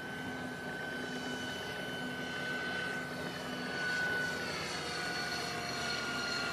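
Radio-control model helicopter flying overhead: a steady high-pitched motor whine over rotor noise, the pitch dropping slightly about four to five seconds in.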